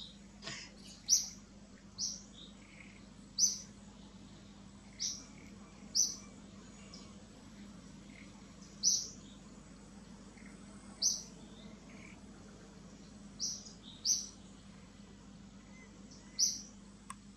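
An infant macaque giving short, high-pitched cries again and again, about a dozen in all, one every second or two at uneven intervals: a baby's distress calls for its mother.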